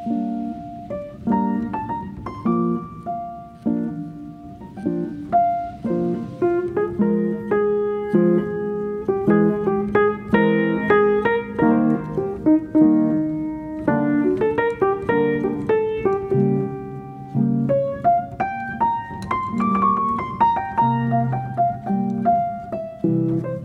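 Background piano music: a melody of struck single notes over lower chords.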